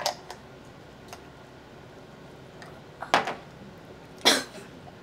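A woman coughing in short bursts: a small cough at the start, then two loud coughs about three and four seconds in, a reaction to gulping down a foul 'mud water' drink.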